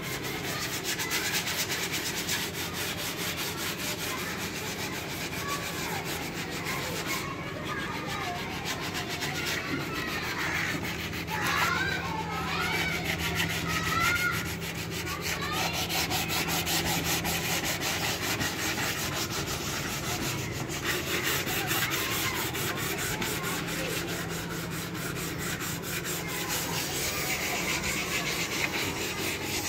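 Sandpaper rubbing fast back and forth over a sheesham (Indian rosewood) tea trolley, an even scratchy rasping.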